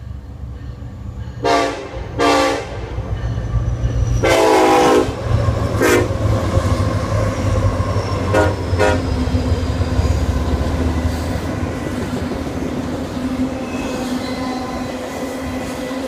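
Union Pacific diesel locomotive horn sounded in a pattern of two short blasts, one long and one short, then two quick toots about eight seconds in, over the low rumble of the passing locomotives' diesel engines. The rumble gives way to the steady rolling noise of the train's cars on the rails.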